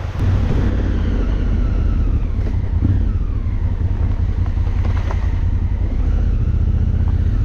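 Enduro motorcycle engine running under way, its pitch rising and falling with the throttle, over a deep rumble of wind on the microphone.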